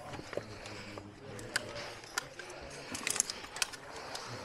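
Scattered light clicks and knocks as cavers scramble over rock: boots scuffing and caving gear clinking.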